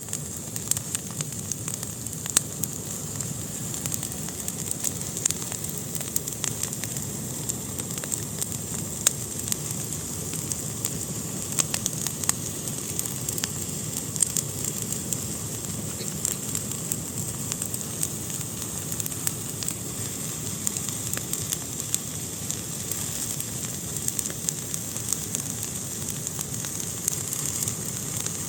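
Fire burning in a fireplace, crackling with frequent irregular sharp pops over a steady hiss and low rumble.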